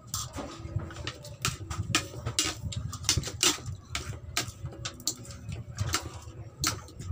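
Close-up eating sounds: chewing and lip smacking, with a spoon and fork clicking and scraping against a plate of rice in quick irregular clicks.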